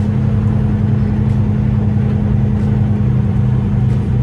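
Semi truck's diesel engine running steadily, a low even hum heard from inside the cab.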